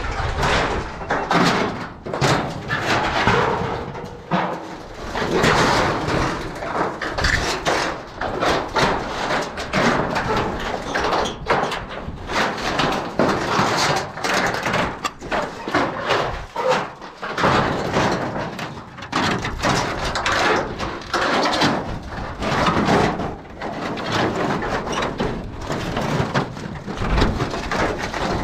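Rustling, scraping and knocking from people moving through brush and shifting cover boards and debris.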